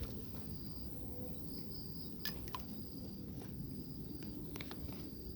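Insects trilling with a thin, steady, high-pitched note that breaks off briefly now and then, over a low outdoor background noise, with a few faint clicks.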